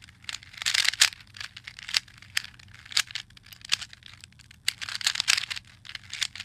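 Plastic Rubik's cube layers being turned quickly by hand: a rapid, irregular run of clicks and short scratchy rasps.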